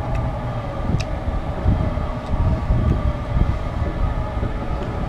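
A steady droning hum made of several held tones over a low, uneven rumble, with a few faint clicks.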